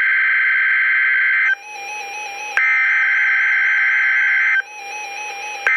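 NOAA Weather Radio SAME (Specific Area Message Encoding) header: digital data tones sent as a harsh, buzzy two-tone warble, repeated in three bursts of about two seconds each with roughly a second's pause between them. The bursts are the coded header that opens a Required Weekly Test.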